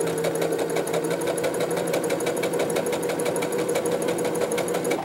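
Electric sewing machine running at a steady speed, sewing a straight-stitch seam through fabric: a constant motor hum with rapid, even needle clatter, cutting off suddenly at the very end.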